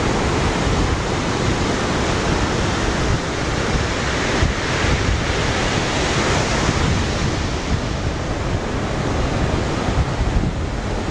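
Ocean surf breaking steadily, with wind buffeting the microphone; a little stronger about halfway through.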